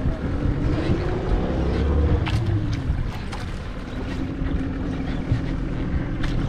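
Small fishing boat's engine running, rising in pitch and falling back between one and three seconds in, then holding steady, with a few knocks and wind buffeting the microphone.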